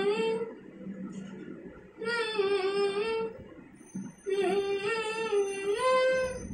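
A girl singing unaccompanied in a small room, holding long sung notes in three phrases with short breaths between; the last phrase rises in pitch near the end.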